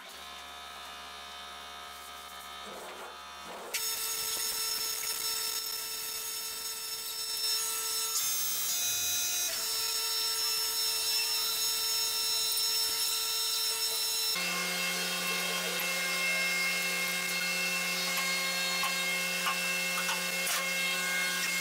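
Steady workshop hum of fans and machinery, its pitch mix shifting abruptly a few times, with a few light clicks and knocks of handling near the end.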